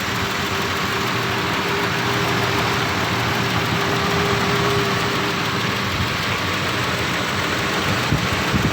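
1990 Nissan Safari's carbureted petrol engine idling steadily and smoothly. It is running again now that a new ignition coil and ballast resistor have cured its crank-but-no-start fault.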